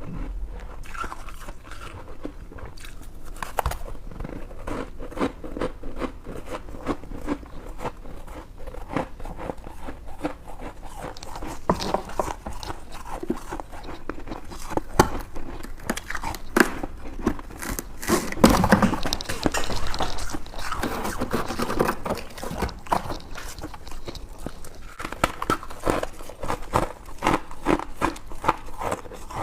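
Close-up biting and chewing of white freezer-frost ice: many irregular crisp crunches, at their loudest and thickest about two-thirds of the way through.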